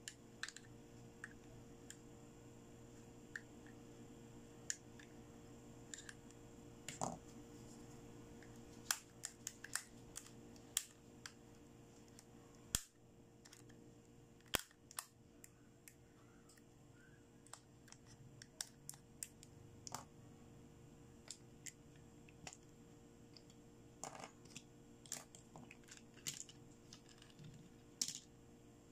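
Light clicks and taps of hard plastic toy dental pieces being handled: a toy dental tool knocking against the teeth of a plastic jaw model, in scattered clusters over a faint steady hum.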